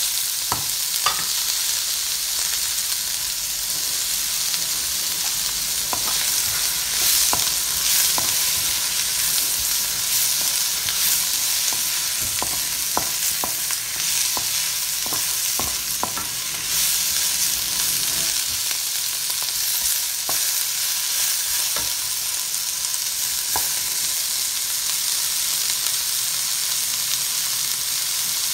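Sliced onions, ginger and garlic sizzling steadily as they fry in hot oil in a non-stick pan, with scattered clicks and scrapes of a wooden spoon against the pan as they are stirred.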